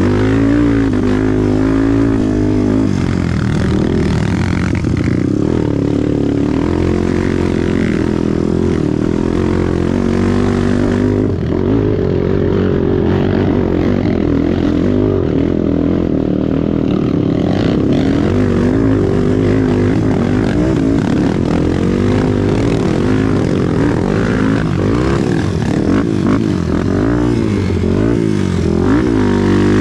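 Off-road trail motorcycle engine running under way, its revs rising and falling over and over as the throttle is worked.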